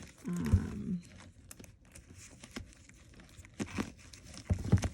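Packaging and a small coin purse being handled: crinkling and rustling, with a cluster of sharp knocks and clicks near the end. A short hum of voice comes about half a second in.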